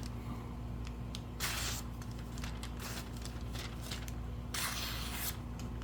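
Freshly sharpened Cuisinart kitchen knife slicing through paper: two short swishes, one about a second and a half in and one near the end, over a steady low electrical hum.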